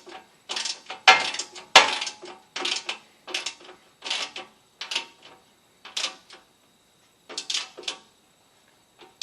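Socket ratchet clicking in short bursts on its back-swings as a skid plate bolt is tightened, with about one stroke every second; the strokes come further apart toward the end.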